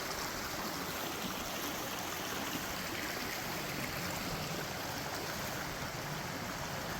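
Creek water running steadily over rocks, a constant even rushing sound.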